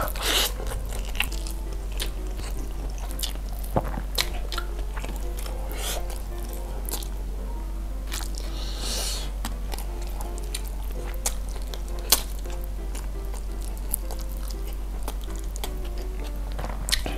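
Close-miked mouth sounds of a person biting into and chewing a mouthful of rice and honey-grilled chicken with sambal, with scattered sharp smacks and crunches, over quiet background music.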